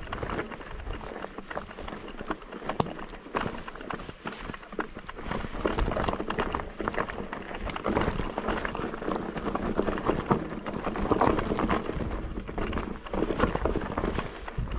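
Electric mountain bike clattering over a rough, rocky trail: a constant run of uneven knocks and rattles as the tyres hit stones and the bike jolts.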